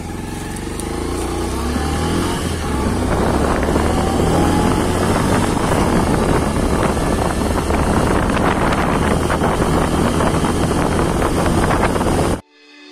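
Road vehicle driving at speed, heard from on board: a steady engine hum under a rushing noise. It grows louder over the first few seconds, then cuts off suddenly near the end.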